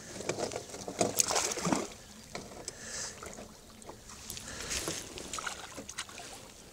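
Water splashing and sloshing at the side of a small boat as a hand and a mesh keepnet are worked in the water to put a caught fish into the net: irregular splashes, the loudest about a second in.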